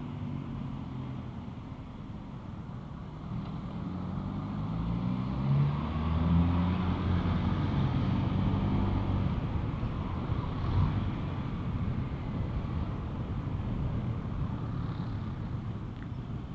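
Honda ADV150 scooter's single-cylinder engine accelerating, its pitch rising from about three to seven seconds in, then running at a steady cruise under a steady rush of riding noise.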